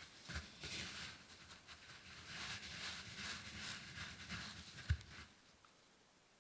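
Dry breadcrumbs rustling and crackling in a wooden bowl as hands press and toss them over a batter-coated piece, in uneven bursts. A dull thump about five seconds in.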